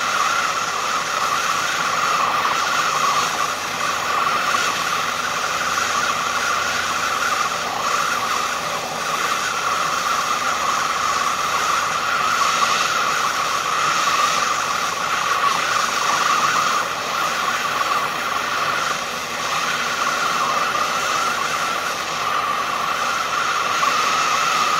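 Propane torch burning with a steady rushing noise, heating steel so it can be bent.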